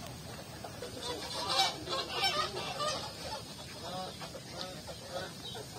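Waterfowl calling: a run of short, repeated calls from about a second in, with a few more about four seconds in.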